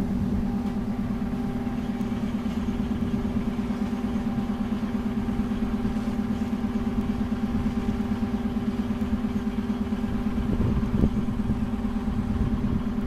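Passenger train coaches rolling slowly past, with a steady hum and a low, rapidly pulsing drone that starts abruptly.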